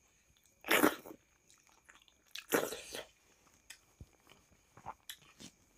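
Close-up eating sounds of rice and dal eaten by hand: chewing and fingers working the rice, with two louder noisy sounds about a second in and around two and a half seconds in, then a few small clicks.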